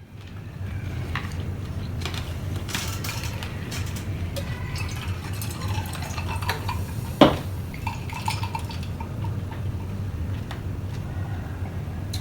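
Eating at the table: utensils clinking and scraping against a bowl and plate, scattered light clicks with one sharp clink about seven seconds in, over a steady low hum.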